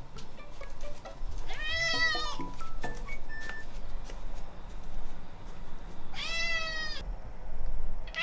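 Ragdoll cat meowing twice, each meow a drawn-out call of about a second that rises and then falls in pitch.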